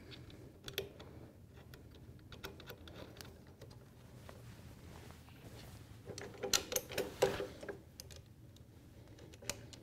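Faint metal clicks and ticks of a washer and nut being fitted by hand onto a bolt through a workbench caster's steel foot tab, with a louder quick run of clicks about six and a half seconds in.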